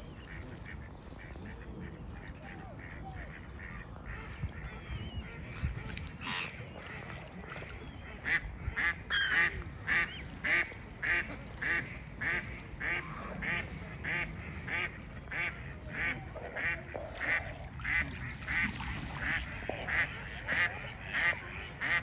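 Mallard duck quacking over and over, about two quacks a second, from about eight seconds in, over scattered calls from other waterfowl; one louder, higher call about nine seconds in.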